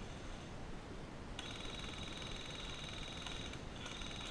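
A steady high-pitched buzz starts about a second and a half in, over a faint low outdoor background, breaks off briefly near the end, then resumes.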